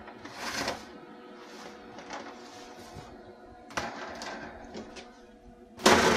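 Metal cookie sheet sliding and scraping over a wire oven rack as it is pulled out, in short scrapes about half a second and four seconds in, with the loudest scrape near the end.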